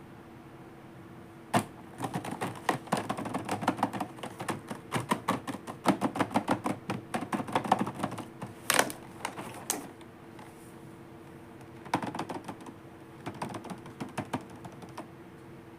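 Plastic toy pieces and packaging being handled: quick runs of clicks and taps, in a long busy spell and then a shorter one about twelve seconds in.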